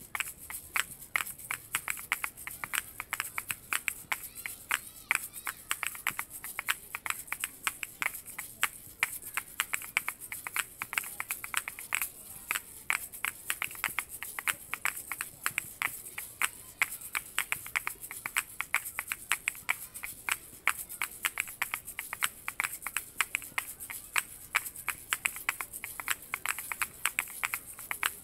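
Two pairs of asalato, one of them a PANMAN custom set, played together: the shells clack sharply many times a second in an interlocking 3:4 polyrhythm, over a constant high seed rattle.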